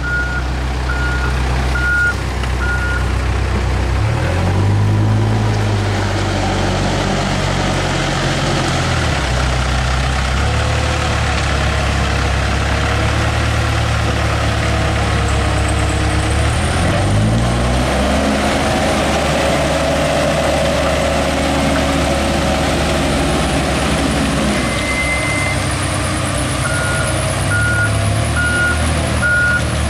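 Diesel engine of a Case 580 backhoe loader labouring as it pushes a loaded truck through mud with its bucket, revving up about four seconds in and again around seventeen seconds, with the truck's engine running under it. A reversing alarm beeps at the start and again near the end.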